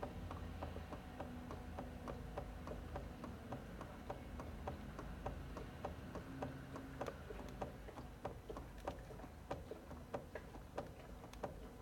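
Steady run of light clicking knocks, about three to four a second, from free play in a car's steering or suspension as it is worked back and forth. The knocking shows the play that is being checked for.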